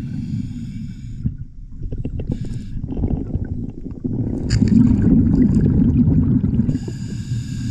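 Scuba diver breathing underwater through an Apeks regulator: a hissing inhale at the start, a rumble of exhaled bubbles through the middle, and another hissing inhale near the end.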